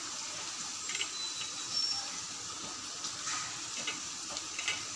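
Bottle gourd and shrimp curry cooking in a metal kadai, giving a steady hiss of sizzling and steam, with a few faint clicks.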